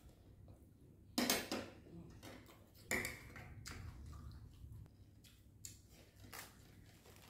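Eating sounds: a loud slurp of soup from a metal spoon about a second in, then a sharp clink of the spoon against the glass bowl that rings briefly, followed by quieter chewing and mouth clicks.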